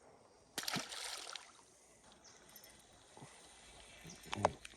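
Creek water sloshing and splashing, with one sudden splash about half a second in and a short louder knock or splash near the end.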